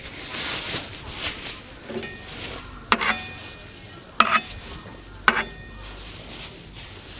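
Rustling hiss, then three sharp knocks with a brief ringing tone, about a second apart.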